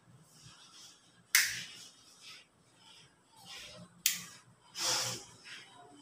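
Two sharp clicks about three seconds apart, each trailing off briefly in a bare room, with fainter rustling between: a temporary wall light switch being flipped while newly installed ceiling lights are tested.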